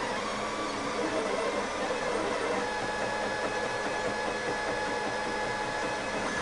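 Monoprice Maker Select 3D printer printing, its stepper motors whirring with steady tones, a higher one joining about two and a half seconds in. It is a weird noise the owner puts down to a resonance of something, not binding.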